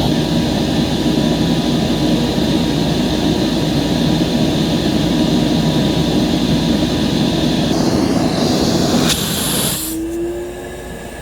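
Vintage Hoover Portable 2110 vacuum cleaner running at full suction, with air drawn through its stretched-out hose during an airflow test: a loud, steady rushing sound. About nine seconds in there is a brief sharp hiss, and then the sound drops to a quieter, steady hum.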